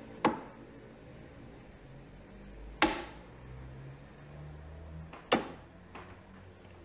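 Three darts striking a dartboard one after another, each a short sharp thud, about two and a half seconds apart.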